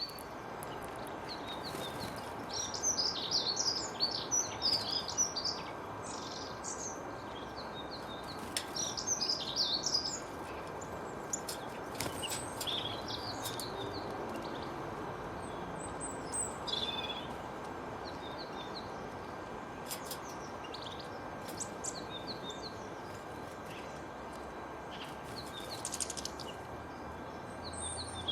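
Wild songbirds chirping and singing in short runs of quick high notes, busiest in two flurries in the first ten seconds and scattered after, over a steady background hiss.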